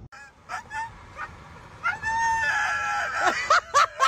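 Dog howling and yelping: a few short calls, then one long held howl about two seconds in, then a quick run of short yelps near the end.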